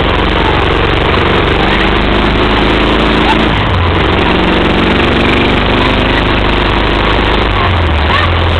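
Moto Guzzi sidecar outfit under way, heard from the sidecar: the motorcycle engine runs steadily under a rushing noise of wind and road. The engine note shifts about three and a half seconds in and again near the end.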